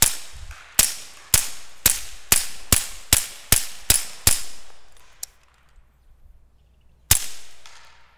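Walther PPQ 9mm pistol firing through a YHM R9 suppressor, heard from in front of the muzzle: about ten shots in quick succession over the first four seconds. After a pause there is one more shot about seven seconds in.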